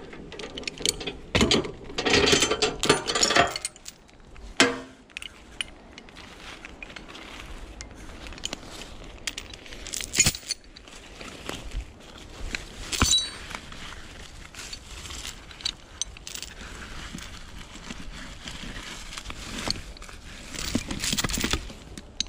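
Heavy steel chain clinking and rattling as it is handled, in dense bursts in the first few seconds and again near the end, with a few single metallic clinks in between.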